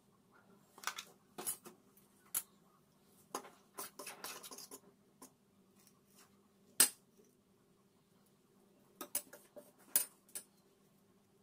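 A steel spoon tapping, clinking and scraping against a stainless steel pan of flour in irregular clicks, the sharpest about seven seconds in and again near ten seconds, with a short scraping, rustling stretch around four seconds. A faint steady low hum sits underneath.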